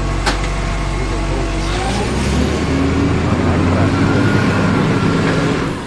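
Motor vehicle engine sound running steadily, shifting and rising in pitch from about two seconds in, then cutting off abruptly near the end.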